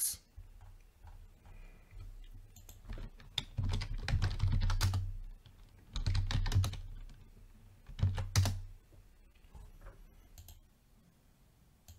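Typing on a computer keyboard: several short bursts of key clicks with soft low thuds, entering commands in a terminal.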